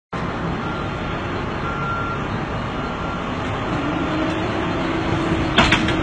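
Engine of a tracked auger drilling rig running steadily, with a faint held whine. A single short, sharp knock comes near the end.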